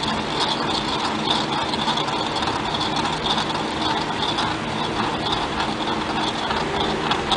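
Small battery-powered motor of a toy contraption board game running steadily with a continuous mechanical whir.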